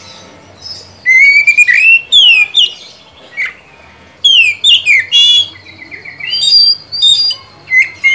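Male Oriental magpie-robin (kacer) singing loud, varied whistled phrases: rising and falling notes and quick trills, separated by short pauses.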